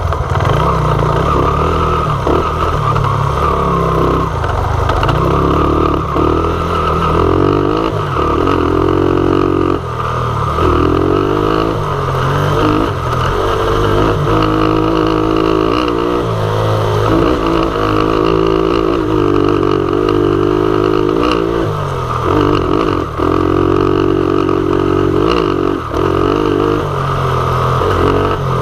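Dirt bike engine running hard on a rough trail, its pitch rising and falling as the throttle opens and closes, with short dips every few seconds. Knocks from the bike jolting over rocks and ruts are mixed in.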